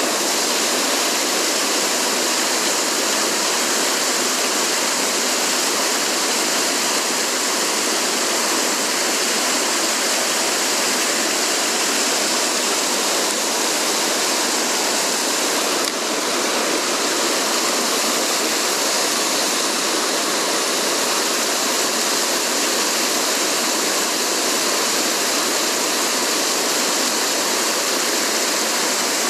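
Mountain stream water rushing steadily, a constant even hiss of flowing water.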